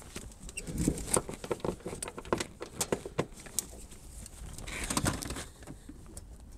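Irregular clicks and rattles of a strap being unfastened and stored camping gear being shifted inside an RV pass-through storage compartment, with a short rustle about five seconds in and wind rumbling on the microphone.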